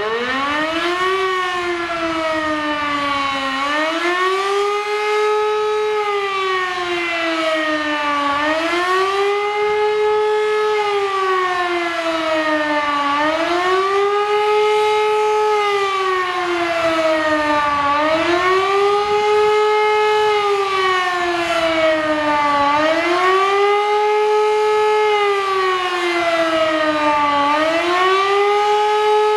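Rooftop civil defence siren sounding the undulating warning signal during a siren test. The pitch repeatedly rises, holds briefly at the top and falls away, about once every four to five seconds.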